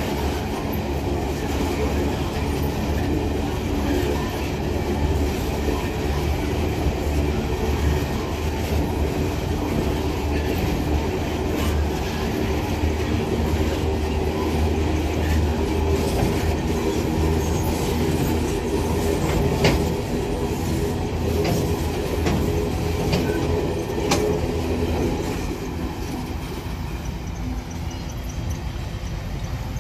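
Empty iron-ore gondola wagons rolling past on steel wheels: a steady rumble with a few sharp clicks from the rail joints and some wheel squeal. The noise drops off near the end as the last wagon goes by.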